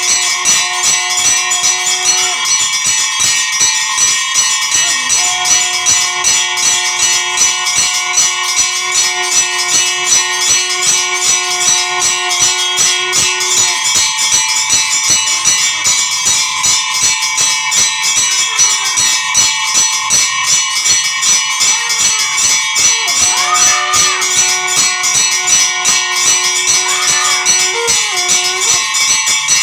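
Temple bells ringing rapidly and continuously. A long held low tone stops and starts a few times over the ringing.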